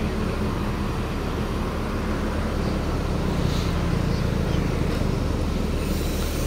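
Parked coach buses' diesel engines idling, a steady low hum that holds even throughout.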